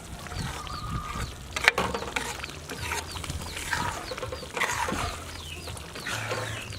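Birds chirping: many short, high chirps that drop in pitch, repeated steadily, with one sharp click about a second and a half in.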